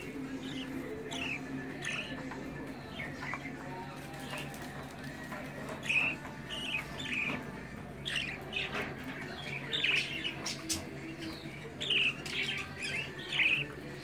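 Budgerigar chicks chirping: short, high, downward-sliding calls, a few at first and then in quick clusters through the second half.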